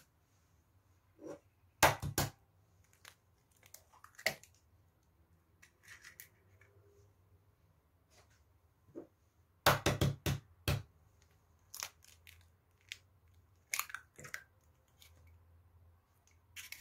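Eggs being cracked into a plastic mixing bowl: two sharp clusters of shell cracks, about two seconds in and about ten seconds in, with scattered lighter clicks and taps between.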